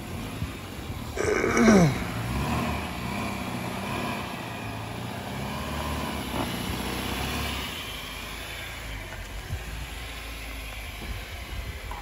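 Car engine and road noise as the car moves off, the engine note wavering. A brief sound falling in pitch comes about a second in.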